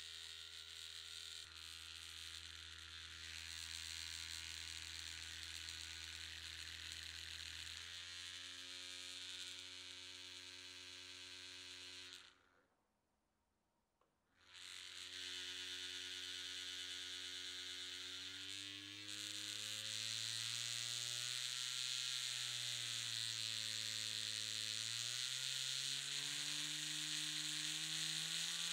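Small loudspeaker driving a stretched thread with a low buzzing tone, rich in overtones. The tone cuts out about twelve seconds in and returns two seconds later. From about nineteen seconds its pitch climbs gradually in glides and steps, shifting the thread's standing waves.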